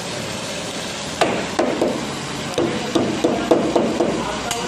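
Flat metal spatula knocking repeatedly on a steel countertop, crushing chopped garlic: about ten sharp, briefly ringing metal-on-metal knocks starting about a second in, over a steady background hiss.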